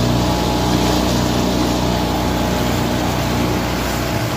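A motorboat running at speed: a steady engine hum under the rush of water churning along the hull.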